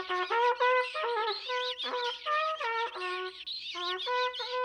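Small trumpet played as a simple tune of short held notes that step up and down, one after another, pausing briefly partway through; it is the tune that leads the fuzzies along.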